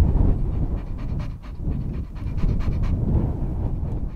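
Dog panting rapidly close by, a few breaths a second, over a low steady rumble.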